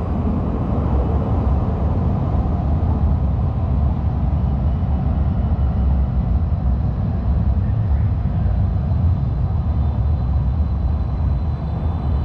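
Calgary C-Train light rail car running along the track: a steady low rumble heard on board.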